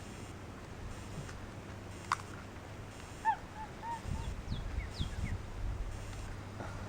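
A few short, high animal chirps and quick downward whistles, starting about three seconds in, after a single sharp click about two seconds in.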